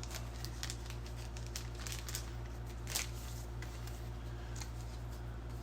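Faint rustling and light clicks of paper and cardboard being handled, with one sharper click about three seconds in, over a steady low hum.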